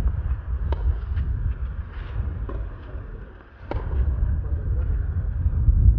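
Tennis rally on a clay court: several sharp racket-on-ball hits a second or two apart, over a heavy low rumble.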